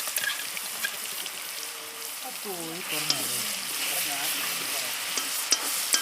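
Ginger-garlic paste frying in hot oil in a pan, sizzling steadily with small crackles and pops.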